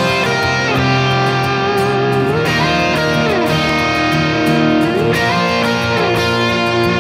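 Background music: the instrumental intro of a country rock song led by electric guitar, with notes bent up and down in pitch.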